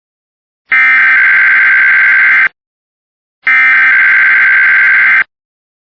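Emergency Alert System SAME header data bursts: loud, buzzy two-tone digital screeching, heard as two identical bursts of about two seconds each, a second of silence apart. They encode the digital header that opens a Required Weekly Test.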